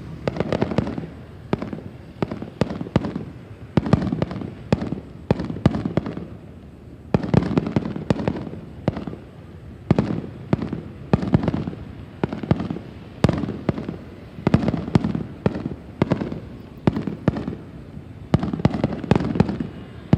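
Aerial fireworks display, shells bursting one after another with sharp bangs and crackle, coming in clusters about once a second without a break.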